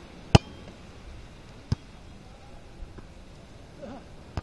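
Hands striking a volleyball during a beach volleyball rally: a sharp slap about a third of a second in, the loudest, a quieter one in the middle, and another at the very end.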